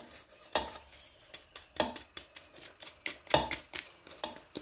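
Wooden spoon tapping and scraping chopped coriander and green onion off a plate into a pot: a run of irregular light clicks and scrapes, the sharpest about half a second, two seconds and three and a half seconds in.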